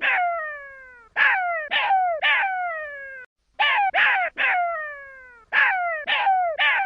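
Jackal pup crying: short high cries, each falling in pitch and trailing off, in groups of three roughly every two seconds.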